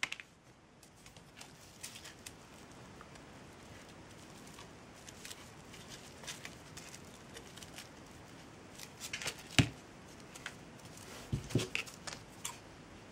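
Scissors snipping jute strips: a few short, sharp snips and clicks over quiet handling noise, the loudest about two thirds of the way through and a small cluster near the end.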